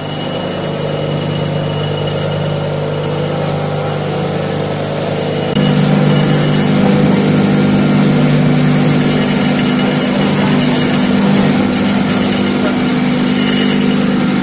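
Stainless-steel vegetable shredding machine running with a steady, loud motor hum. About five and a half seconds in it gets louder and hissier as greens are cut and pour out of the chute.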